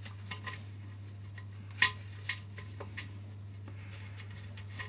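Small metallic clicks and clinks as a brass washer and wing nut are fitted and threaded onto a toilet cistern's fixing bolt by hand, with one sharper click about two seconds in. A steady low hum runs underneath.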